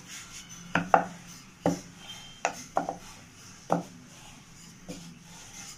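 Wooden rolling pin and round wooden board knocking as thin rumali roti dough is rolled out: about eight sharp, irregular wooden clacks, with faint rubbing in between.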